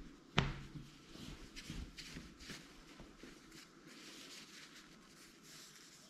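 Cloth rustling as a thick plaid knit fabric is handled and turned over, in soft repeated strokes, with one sharp knock about half a second in.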